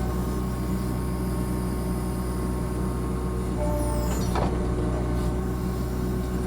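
Compact excavator's diesel engine running steadily under the operator, heard from the cab. About four seconds in there is a brief higher whine and a single knock.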